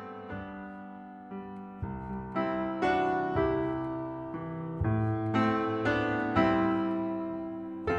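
Background music: a gentle piano or electric-piano piece, notes struck one after another and left to ring.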